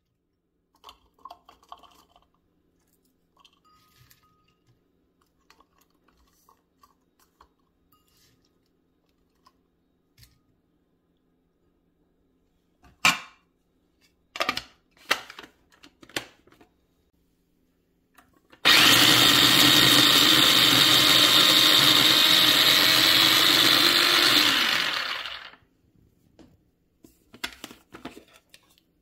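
Small electric mini food chopper running loud and steady for about seven seconds as it blends chopped spring onions and herbs, starting suddenly and winding down with a falling pitch. Before it, a few scattered sharp clicks and knocks.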